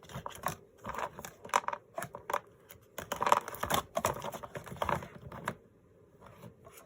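Rolls of craft tape clicking and clattering against one another as they are gathered up and sorted after spilling, in quick irregular clicks that die away near the end.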